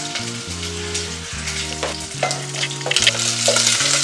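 Diced bacon sizzling and crackling in hot fat in a frying pan while being stirred to brown, the crackling growing louder and busier in the second half.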